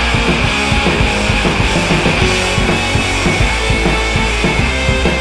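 Loud rock music with a drum kit keeping a steady beat.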